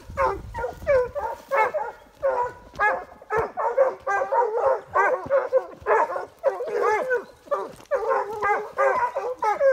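A pack of Porcelaine hounds giving tongue, baying on a scent trail, with several voices overlapping in a steady run of falling calls, several a second.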